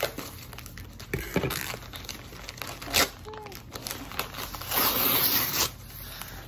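A brown paper mailer package being handled and torn open, crinkling, with a sharp click about three seconds in and a loud tearing rip lasting about a second near the end.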